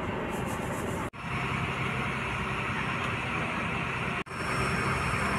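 Steady engine drone and cabin noise inside a passenger ferry, with a low hum. It cuts out abruptly for an instant about a second in and again about four seconds in, then resumes.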